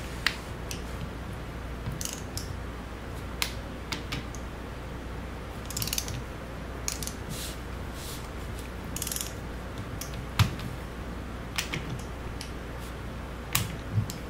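Ratcheting torque wrench tightening the bolts of a hydraulic control valve body to about 30 ft-lb: short bursts of ratchet clicking between single sharp clicks of the wrench and metal parts.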